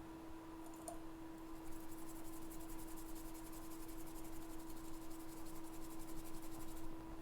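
Small brush scrubbing a phone logic board in quick, even, scratchy strokes that start about a second and a half in and stop near the end, over a steady electrical hum from the bench equipment.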